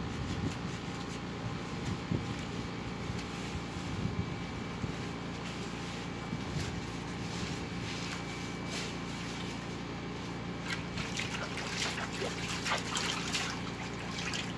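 Water sloshing, splashing and dripping in a plastic kiddie pool as a soapy dog is scrubbed by hand, the splashes coming more often in the last few seconds.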